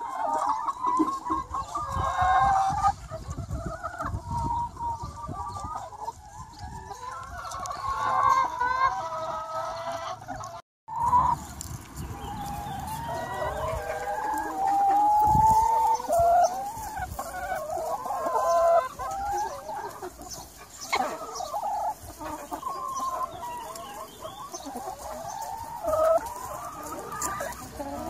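Chickens clucking continuously, with a rooster crowing among them. The sound cuts out completely for a moment about eleven seconds in.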